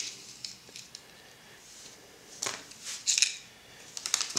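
Small plastic sample packets of microcontroller chips rustling and crinkling as they are handled. A quiet start is followed by three short crackly bursts in the second half.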